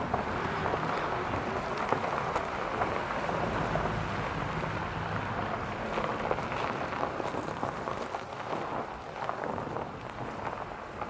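Honda Odyssey minivan on the move: a steady rush of road and tyre noise, with small sharp ticks from a wheel scattered through it.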